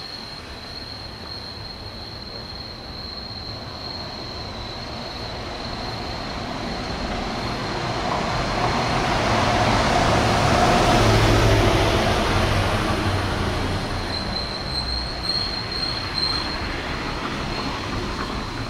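A city bus driving past, its engine rumble and tyre noise swelling to a peak about halfway and fading away again.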